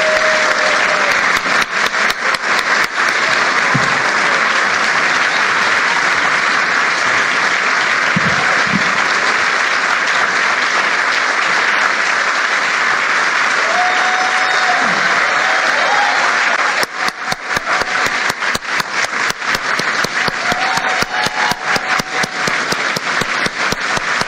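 Audience applauding: dense, steady applause that thins into separate, distinct claps about two-thirds of the way through.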